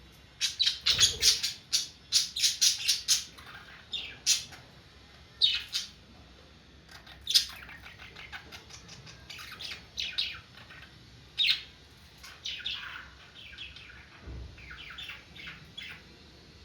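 Pet budgerigars chirping and chattering: a fast, dense run of sharp chirps for the first three seconds, then scattered single chirps and short chattering runs.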